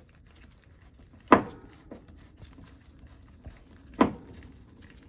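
Hand screwdriver turning a screw out of a plastic thermostat base plate, with faint scraping clicks as it turns, and two sharper clicks about a second in and near the end.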